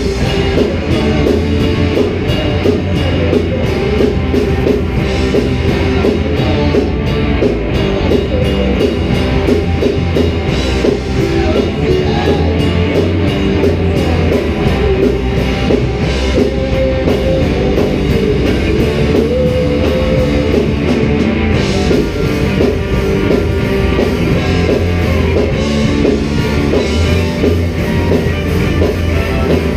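A live rock band playing loud: electric guitars, bass guitar and a drum kit together in one continuous song.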